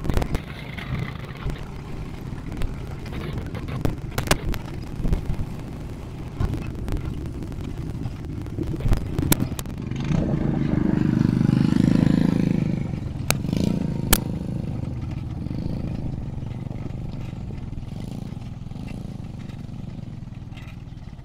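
ATV engine running under way over dirt and gravel, with sharp knocks and rattles from bumps. The engine grows louder from about ten to thirteen seconds in, then eases off as the quad slows.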